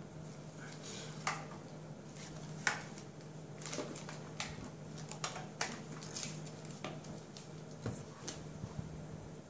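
Irregular clicks and knocks of a plastic external hard-drive case being handled, turned over and set down on a wooden table, with its cables being moved about.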